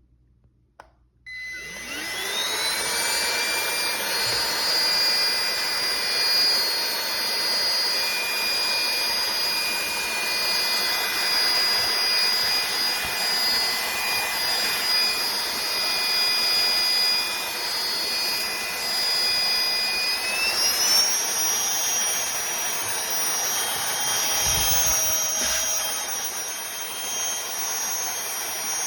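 A cordless handheld vacuum (Aspiron) switches on after a moment of silence, its motor spinning up into a steady high whine. About twenty seconds in, the whine steps up in pitch as the vacuum goes into its higher-power mode, and a couple of dull bumps follow soon after.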